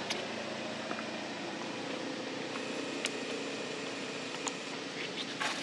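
Steady background noise with a faint steady hum, broken by a few brief sharp clicks.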